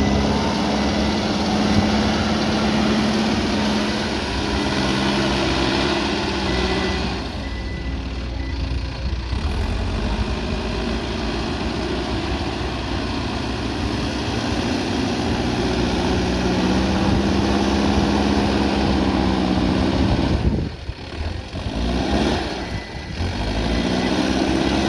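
Backhoe loader's diesel engine running under load, its pitch rising and falling as the machine works, with a thin steady high tone of a reversing alarm in parts. The engine sound drops away briefly about eight seconds in and again a little past twenty seconds.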